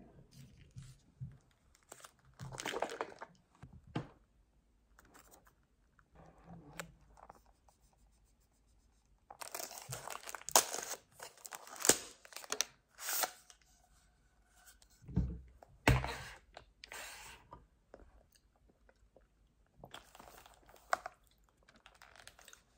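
Tearing and crinkling as a straw wrapper is opened and a sealed bubble tea cup is handled, with short handling clicks and two dull thumps about two-thirds of the way through.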